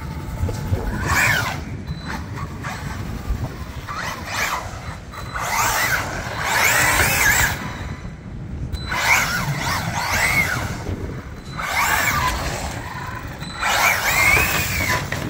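Maverick Quantum R Flux 1/8-scale RC car's 4S brushless motor whining in several short bursts, its pitch rising and falling as the throttle is applied and let off, with tyre hiss on rough concrete.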